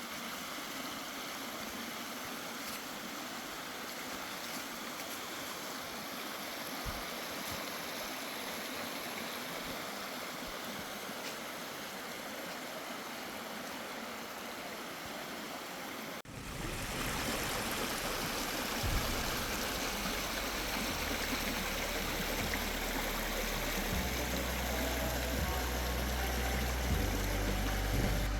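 Flowing river water, a steady rushing. About sixteen seconds in it cuts off abruptly and background music with deep, stepping bass notes takes over.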